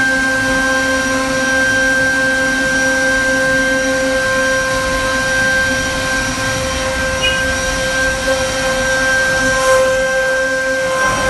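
CNC router spindle running at a steady high-pitched whine while its bit cuts into a wooden panel, with a hiss of cutting underneath.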